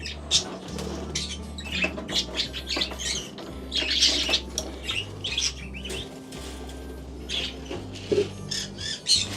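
Caged pet birds squawking and chirping in many short, quick calls throughout.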